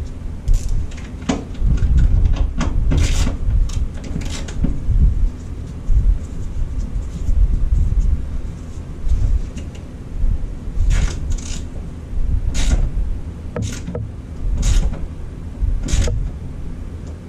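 Scattered sharp metal clicks and taps as a ground strap and its fastener are worked onto the underside of a Jeep TJ's steel hood: a cluster in the first few seconds, then a run of separate clicks later on. A steady low rumble runs underneath.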